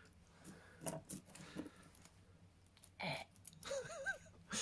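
Faint clicks and rustles of handcuffed, mittened hands fumbling with lock-picking tools and a padlock on a table. Near the end comes a short wavering hum.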